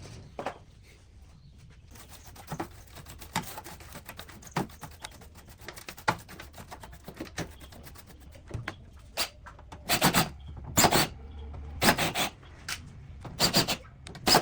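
Hand work on metal stove parts: light scrapes and clicks, then from about ten seconds in, strong rasping strokes about once a second, typical of scrubbing or sanding rust off a part.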